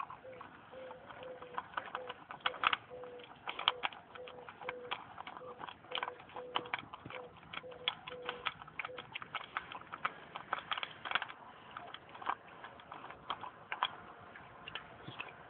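Bouvier des Flandres puppy eating dry dog biscuits from a metal bowl: irregular crunching and clicking as the kibble is chewed and knocked against the bowl.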